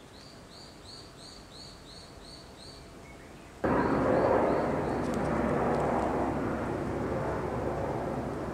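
A small bird repeating a short, arching chirp about three times a second over quiet woodland ambience. A little over three seconds in, a loud, steady rushing noise comes in abruptly and slowly eases off, with a few faint chirps under it.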